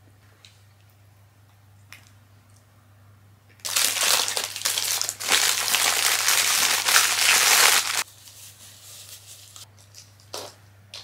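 Paper food wrapping crinkling and rustling as it is handled, starting about a third of the way in, lasting about four seconds and stopping abruptly.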